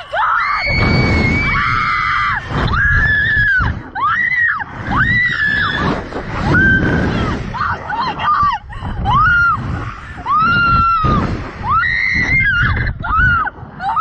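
A young woman screaming over and over on a slingshot ride as it flings and bounces her: about a dozen short, high, arching screams one after another, with wind rumbling on the microphone.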